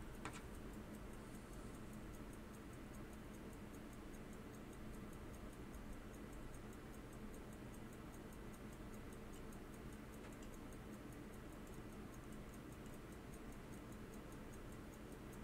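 Faint, rapid, even ticking of a Hamilton Lancaster pocket watch movement's escapement, its balance fitted and swinging.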